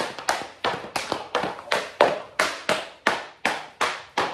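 Hockey stick blade tapping in an even, quick rhythm, about three sharp taps a second, each with a short echo.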